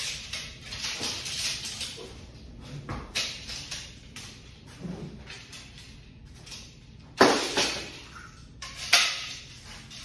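Strikes and footwork at a freestanding punching bag in a garage: quiet room sound broken by scattered sharp slaps and hits, the two loudest about seven and nine seconds in.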